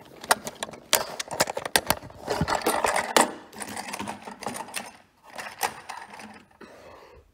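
Hard plastic toy train cars clicking and clattering as they are handled and their couplings pushed together, with knocks against a wooden floor. The taps come in a quick irregular run, thickest in the first three seconds, then a few more after a lull.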